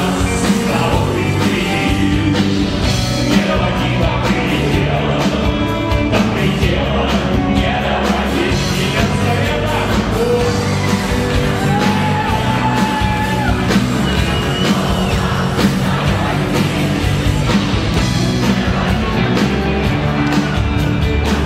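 Live rock band playing: a man singing over electric guitars with a steady beat.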